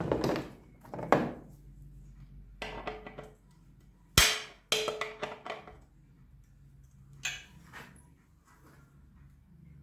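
Knocks and clatter of small metal scooter kick-starter parts and tools being handled on a workbench, in several separate spells. One sharp knock a little past four seconds in is the loudest.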